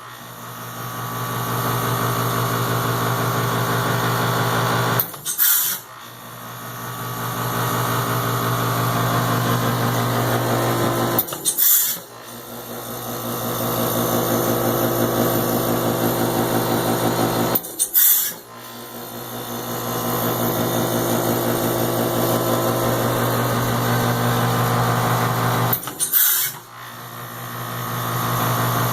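Heat pump humming steadily, then breaking off with a short sharp burst four times, every six to eight seconds. Each time the hum drops away and builds back up over about two seconds. This repeated cutting out and restarting is the strange sound.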